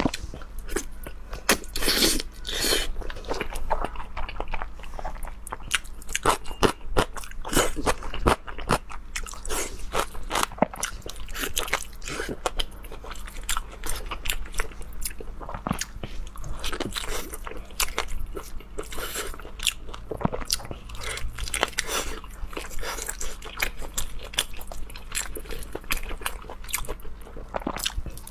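Close-miked eating: crunchy bites and chewing, a dense run of crisp crackles and clicks.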